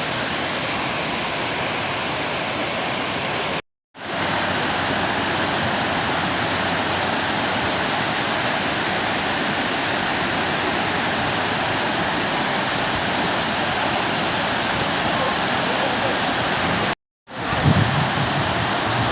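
Kuang Si waterfall rushing steadily, a dense even roar of falling water. It cuts out briefly twice, and near the end some low irregular thumps come in over the water.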